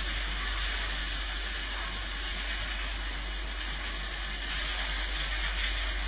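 Steady hiss from a phone-recorded clip of the mysterious 'falling marble' noises in a flat, played back through a phone speaker; no separate knocks stand out from the hiss. It grows a little louder about four and a half seconds in.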